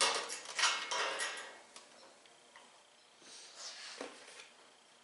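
Small steel hardware, nuts, washers and bolts, clinking and rattling while being fitted to caster wheels on a metal tool cart. A quick cluster of clinks in the first second and a half, then a few lighter clicks about three to four seconds in.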